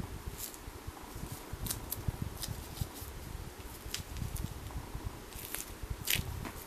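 Hands working on a high-heeled shoe during a glue repair: scattered small clicks, crackles and rubbing as the shoe and its sole are handled, with a sharper click a little after six seconds in.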